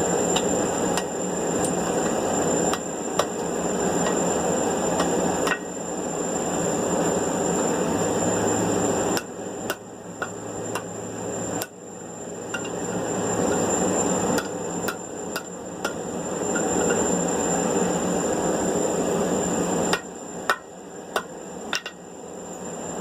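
Light hammer blows on steel tongs, a few at a time with pauses between, setting and adjusting the jaws of newly forged monkey tail tongs. A steady rushing noise runs underneath.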